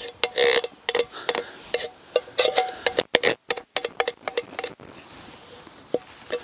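Metal spoon scraping and clinking against the inside of a tin can as canned soup is scooped out into a metal camping pot, the knocks leaving a short metallic ring. The clinking thins out about five seconds in.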